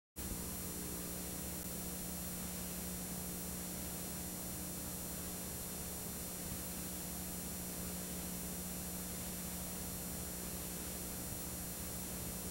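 Steady hiss with a low electrical hum from analog videotape playback, cutting in suddenly out of dead silence just after the start and holding level.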